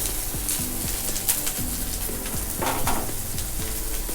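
Freshly added sliced onions sizzling steadily in hot oil in a pan, with a few light clicks of a spatula stirring them.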